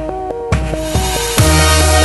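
Electronic dance music with a stepping synth melody. About one and a half seconds in, a deep bass line and heavy kick drum come in.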